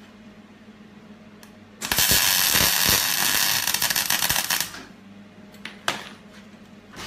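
Electric arc welding on steel tube: about three seconds of loud, steady crackling as a short weld is laid, starting about two seconds in and stopping abruptly. Two brief sharp snaps follow a second later.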